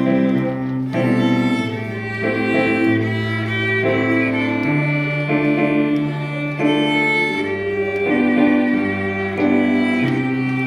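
A small string ensemble, violins and cellos, plays sustained bowed notes over a bass line that moves to a new note every second or so.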